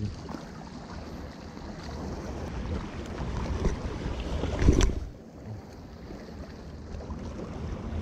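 Wind rumbling on the microphone over waves washing against shore rocks, swelling to a loud gust a little under five seconds in.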